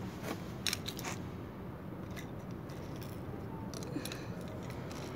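Light clicks and taps of plastic ballpoint pens being set down and nudged on a hard floor: a quick run of about four clicks in the first second, then a few scattered ones later, over a low steady room hum.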